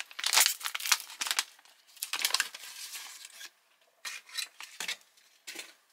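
Brown foil-lined retort pouch of tortillas being torn open and crinkled by hand: a run of rustling, tearing noise over the first few seconds, then a few short crinkles near the end.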